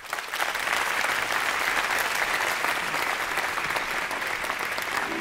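A large seated audience applauding: many people clapping together, steady and sustained.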